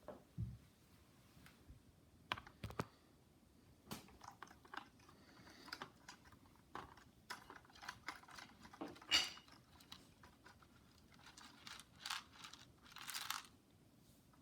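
Faint, irregular light clicks and rustling crunches of popcorn and plastic Lego parts as a Lego model dragline's bucket drags through popcorn. The sharpest click comes about nine seconds in, and a longer rustle follows near the end.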